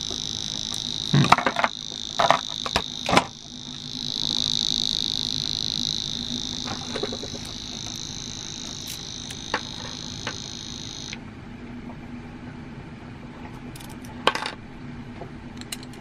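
Alarm padlock's built-in electronic buzzer sounding a steady high-pitched tone after the shackle was pressed down, cutting off suddenly about eleven seconds in. Sharp metallic clicks of the padlock being handled come at the start and again near the end.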